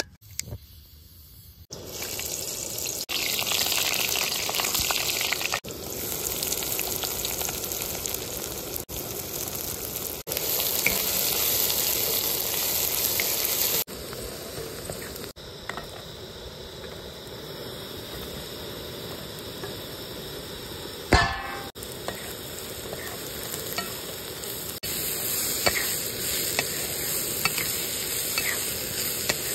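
Food frying in oil in a pan, a steady sizzle, for a mushroom masala. It comes as a run of short edited clips, so the loudness jumps at each cut, and there is one brief louder knock about two-thirds of the way through.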